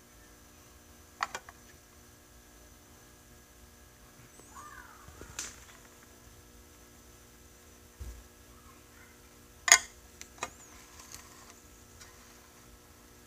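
A few sharp clicks and taps on a small clear plastic enclosure as a wooden skewer is worked inside it. The loudest comes about two-thirds of the way through. A faint steady hum runs underneath.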